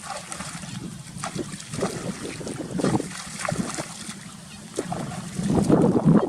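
Water splashing and sloshing in irregular surges, with wind buffeting the microphone.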